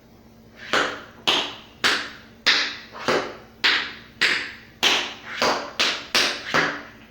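Tap shoes' metal taps striking a hard floor in a steady series of about a dozen sharp taps, roughly one every half second, coming a little quicker near the end.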